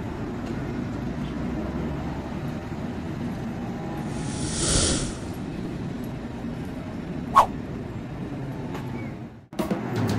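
City street traffic: a steady low rumble of vehicles, with a rising and falling hiss of a vehicle passing about four to five seconds in and one short sharp squeak later on. The street sound cuts off suddenly near the end as music starts.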